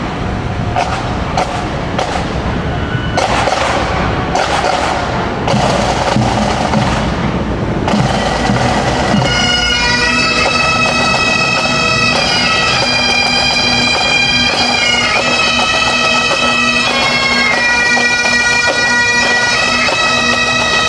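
Marching pipe band of Highland bagpipes and drums: sharp drum strokes at first, then about nine seconds in the bagpipes strike in, a steady drone under the chanter melody.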